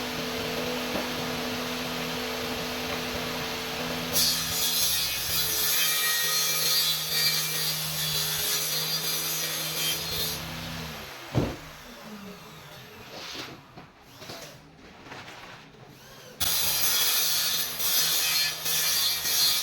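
Electric power tool cutting high-pressure laminate (HPL) sheet. The motor hums steadily, then cuts with a harsh, hissing noise for about six seconds. The motor then winds down, and after a quieter stretch the cutting starts again about three seconds before the end.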